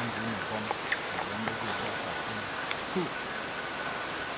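Steady high-pitched insect chirring with a faint hiss underneath and a few light ticks, over a low wavering tone in the first half.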